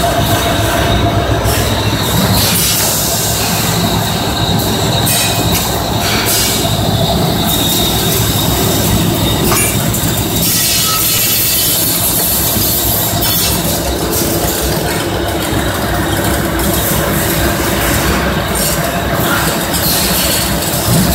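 Corrugated metal sprinkler hose manufacturing machine running: a loud, steady mechanical din with a high hiss that swells and fades.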